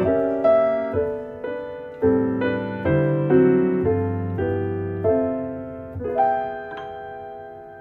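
Slow solo piano music: chords and single notes struck and left to ring and die away. A last chord is struck about six seconds in and fades out.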